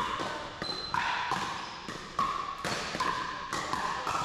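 Pickleball rally in a large gym: paddles striking the plastic pickleball, about six sharp pops, each with a short ring, with hits from neighbouring courts mixed in.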